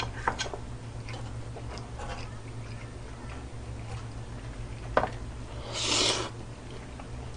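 Quiet eating sounds: a few light clicks of wooden chopsticks against the griddle and dishes, then a short hiss about six seconds in as a mouthful is taken, over a steady low hum.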